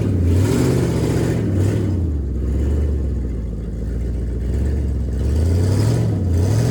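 Chevrolet Silverado's 6.0-litre LS V8 running, revved up and back down once early on and again near the end.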